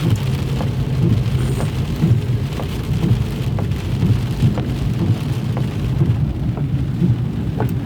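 Rain drumming on a moving car's roof and windscreen, with scattered sharp drop ticks over a steady low road-and-engine rumble inside the cabin.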